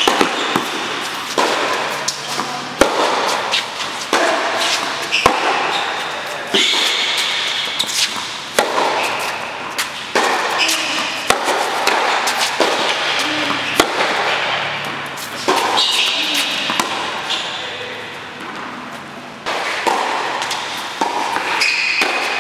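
Tennis rally: a ball struck by rackets and bouncing on the hard court, a sharp pop about every second, each echoing around a large indoor hall, with short high squeaks of tennis shoes between shots.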